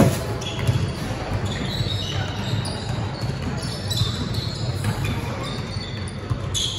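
Basketball bouncing on a gym floor during a game, with many short knocks and scattered voices.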